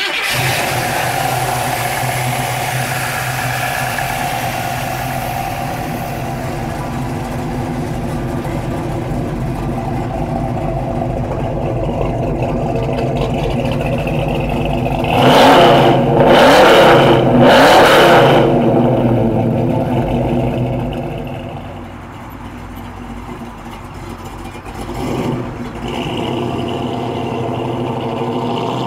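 1969 Chevrolet Chevelle's V8 idling steadily through its dual exhaust. About halfway through it is revved three times in quick succession. Near the end it drops quieter, with one brief rise, then settles back to a steady note as the car drives off.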